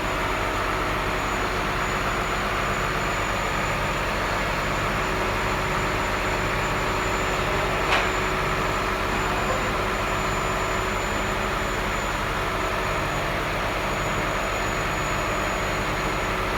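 A vehicle engine running steadily, with a single sharp click about eight seconds in.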